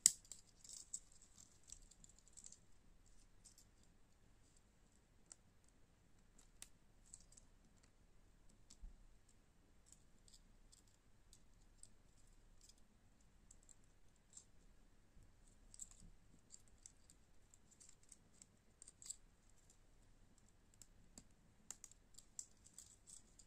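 Faint handling clicks and light metal clinks from a small folding keychain knife, its carabiner clip and key rings being worked by hand, scattered irregularly, with one sharp click at the very start.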